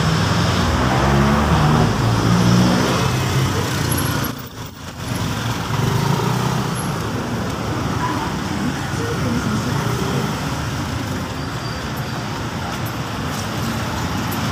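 Street traffic noise, with a vehicle engine running close by in the first few seconds. The sound drops away briefly about four and a half seconds in.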